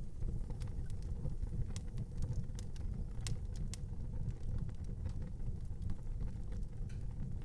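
Wood fire burning in an outdoor fireplace: a steady low rumble with frequent, irregular sharp crackles and pops.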